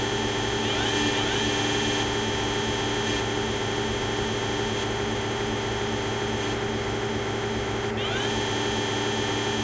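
Construction-site machinery with tower crane winches: a dense, steady mechanical drone made of several held tones, with short rising whines about a second in and again near the end.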